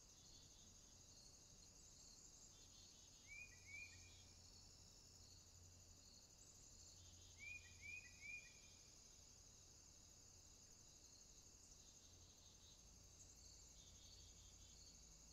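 Faint outdoor background of insects making a steady high drone, broken by two short groups of high, falling bird chirps: two about three seconds in, then three more about seven and a half seconds in.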